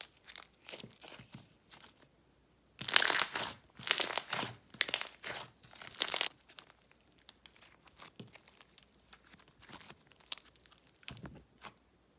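Slime being handled: poked, squished and stretched, giving crackling and popping sounds. The crackling comes in short clusters about three, four and five to six seconds in, with small scattered pops between.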